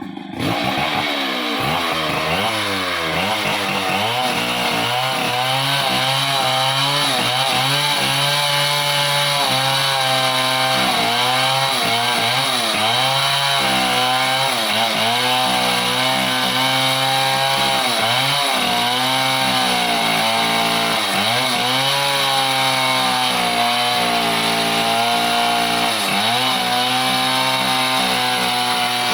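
Two-stroke chainsaw cutting into a merbau trunk at high revs. It comes in suddenly at the start, and its engine note dips and recovers again and again as the bar loads up in the cut.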